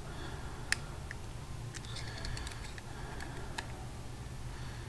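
Light, scattered clicks of small metal carburetor parts being turned in the fingers: the throttle slide of a Mikuni VM26-clone carb with its needle and retainer clip. One sharper click comes about three-quarters of a second in and a quick cluster around the middle, over a low steady hum.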